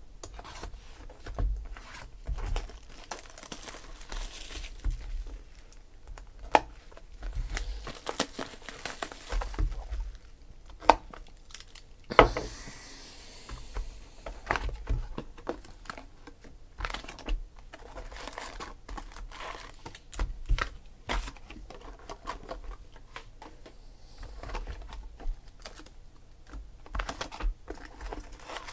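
Shrink-wrap crinkling and tearing as sealed cardboard boxes of trading cards are unwrapped and opened, with the boxes handled on a table: a run of scattered small knocks and clicks.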